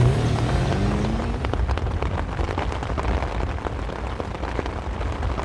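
Heavy rain falling: a steady hiss, dotted with many separate drop hits. A low tone rises briefly in the first second or so.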